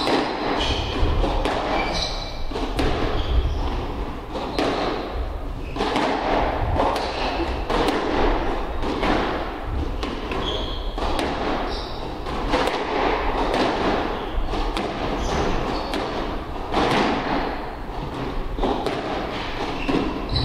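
Squash rally: the ball hitting rackets and the walls in sharp, irregular knocks, with short shoe squeaks on the court floor between shots.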